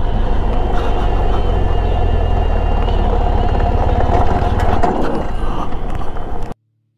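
BMW GS Adventure motorcycle engine running steadily, with road and wind noise. It cuts off abruptly about six and a half seconds in.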